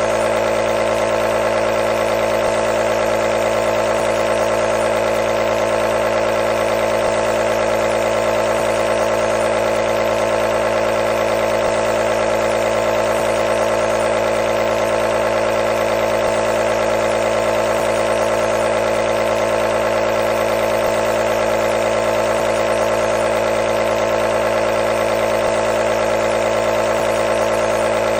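Nebulizer running continuously: a steady, unchanging mechanical hum with a hiss of air over it.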